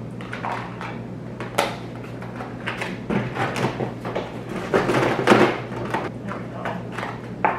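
Small plastic number tags clicking and rattling against each other as they are sorted through by hand, busiest in the middle, over a steady low hum.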